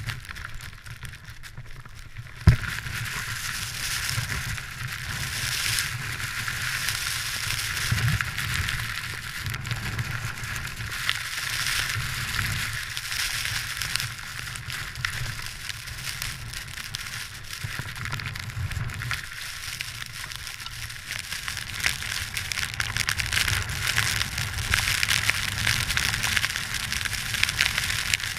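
Wind-blown spindrift hissing and crackling over the camera, with a low wind rumble beneath; a single sharp knock about two and a half seconds in.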